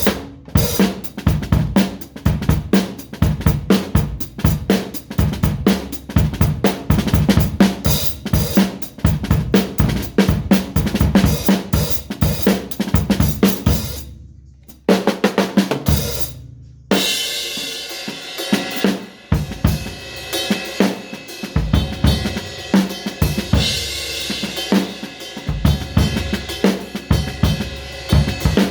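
Drum kit being played in a fast, steady beat of kick, snare and hi-hat hits. It breaks off briefly about fourteen seconds in, restarts and stops again, then carries on with a sustained ringing layer over the hits.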